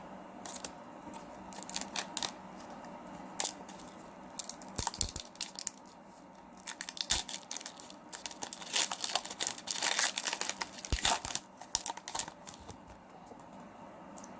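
Foil wrapper of a Pokémon trading card booster pack being torn open and crinkled by hand, in irregular crackling bursts that are busiest in the second half.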